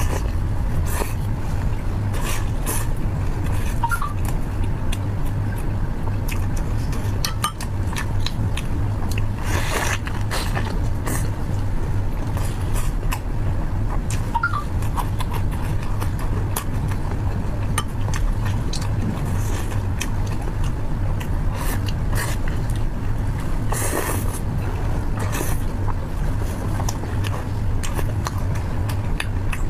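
Close-up eating sounds: wet chewing, mouth clicks and a couple of louder crunchy tearing sounds as saucy seafood is pulled apart and eaten, over a steady low rumble.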